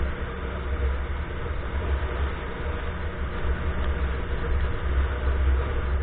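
Motorcycle running while being ridden along a street, heard under a heavy, uneven low rumble.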